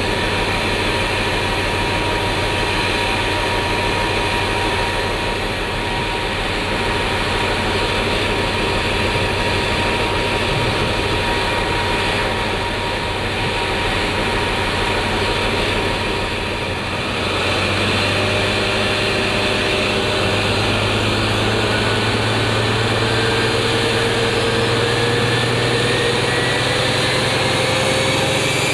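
Paxman Valenta V12 diesel of a Class 43 HST power car running with a steady high-pitched whistle. About two-thirds of the way through, the engine note deepens and a whine climbs steadily in pitch as the engine is worked harder: the Valenta's turbocharger scream building.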